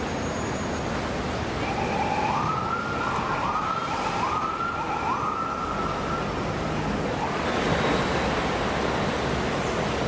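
Emergency vehicle siren wailing in about four repeated rising sweeps, starting about two seconds in, with a fainter sweep near the end, over steady surf noise.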